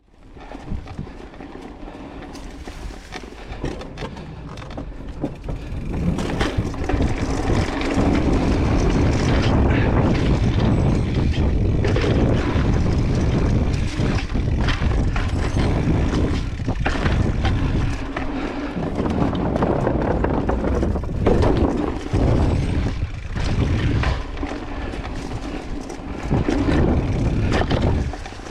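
Mountain bike riding on a dirt trail: wind buffeting the action camera's microphone over tyre rumble, with frequent knocks and rattles from the bike over bumps. It fades in at the start and gets louder about six seconds in as speed picks up.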